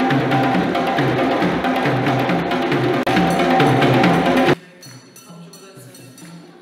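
Several djembe drums played together by hand in a steady, interlocking rhythm. The drumming cuts off abruptly about four and a half seconds in, leaving a much quieter rhythm.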